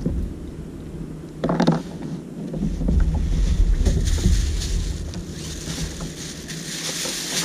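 Clear plastic bag crinkling and rustling as a freshly caught bigfin reef squid is bagged, over a low rumble of wind on the microphone. There is a short louder thump about one and a half seconds in.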